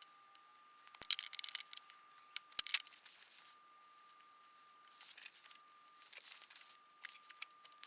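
Clicks and light metallic clinks from handling a battery cable and its terminal hardware, with softer rustling: sharp clicks about a second in and again about two and a half seconds in, then quieter scraping and rustle later on.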